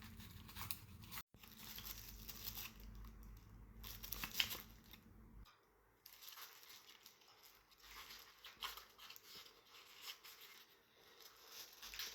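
Faint crinkling and rustling of handled packaging, with scattered light clicks and taps.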